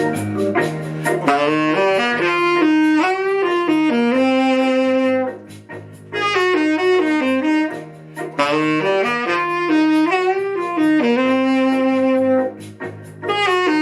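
Instrumental interlude of a song: a saxophone plays a slow melody of long held notes over a steady bass and keyboard accompaniment, in two matching phrases.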